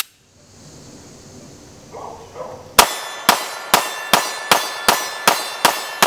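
A CM9 9mm pistol fired rapidly, about nine shots in quick succession starting nearly three seconds in, each with a ringing metallic clang from steel targets. The CZ-75 magazine with a polymer base plate is feeding without a stoppage.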